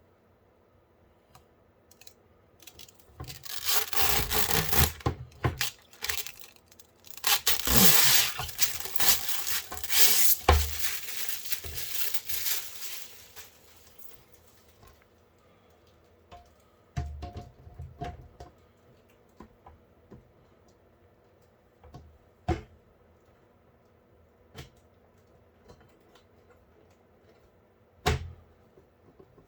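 Hands working cables and parts inside a PC case: two long stretches of rustling, tearing-like scraping, then scattered light clicks and knocks.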